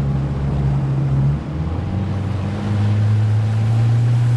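Small boat's motor running under way. About a second and a half in its note drops and the sound dips briefly, then it settles into a louder, steady note.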